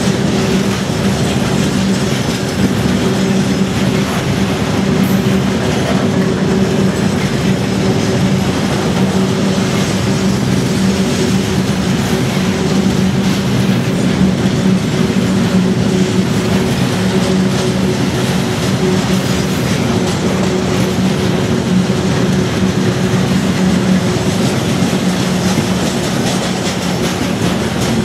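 Freight train of railway tank cars rolling past at close range: the steady rumble of steel wheels running over the rails, with a low steady hum.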